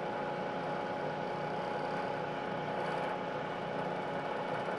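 Milling machine running steadily, its spindle motor turning the cutter with an even hum and a faint steady whine.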